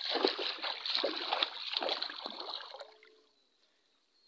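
Shallow water splashing and sloshing in several surges as a man moves through it, dying away about three seconds in.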